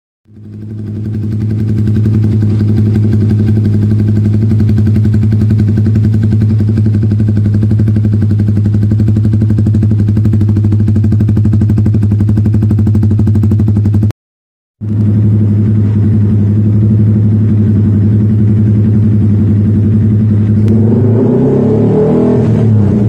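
Yamaha R15 V3's single-cylinder engine breathing through an aftermarket racing exhaust, idling steadily and loudly, then blipped with rising and falling revs near the end. The sound cuts out for a moment about halfway through.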